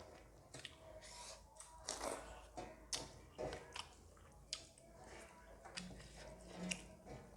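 Close-up eating sounds: chewing and wet smacking of rice and curry with dry buffalo meat, irregular crunches and clicks of food in the mouth.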